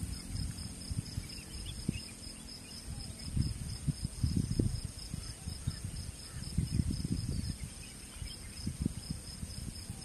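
Wind buffeting the microphone in a low rumble that swells and fades in gusts, over a steady high chirring of crickets.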